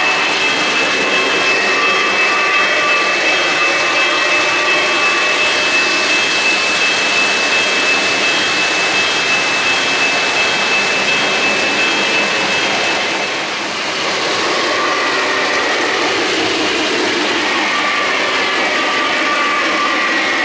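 Three-rail O-gauge model trains running on the layout track: a steady rolling rumble of metal wheels on the rails. A thin steady high tone runs beneath it and stops about two-thirds of the way through.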